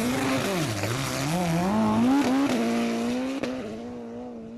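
Drag-racing car launching off the start line: the engine revs dip at the launch, then climb through first gear. There is a gear change about two seconds in, and the engine note holds and fades as the car pulls away down the strip.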